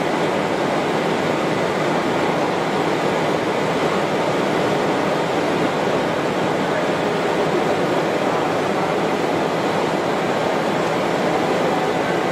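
PP/PET strapping-band production line running: its roller and pulley stands make a steady mechanical noise with no rhythm and no change.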